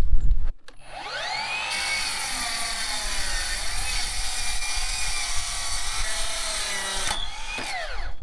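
A brief loud low rumble, then a mitre saw winding up with a rising whine and cutting through 1.5-inch aluminum square tubing for several seconds with a harsh, bright screech before the motor winds down near the end.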